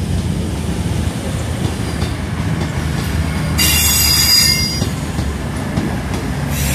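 Voyager diesel multiple unit arriving on the track alongside, its diesel engines running with a steady low hum. Just past halfway, a high metallic wheel squeal lasts about a second.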